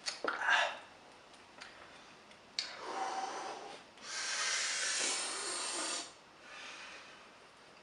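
A person breathing heavily through the mouth and nose, with a couple of long, loud exhales in the middle, while straining not to burp after drinking Pepsi Max.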